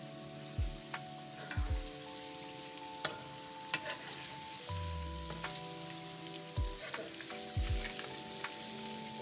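Cornstarch-coated chicken pieces deep-frying in oil in a wok with a steady sizzle. A slotted spatula stirs them, scraping and knocking against the pan several times, loudest about three seconds in.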